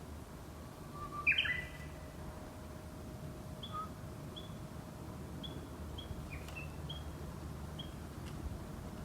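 Bird calls: one loud sweeping call about a second in, then a run of short high chirps repeated every half second or so, over a faint steady hum.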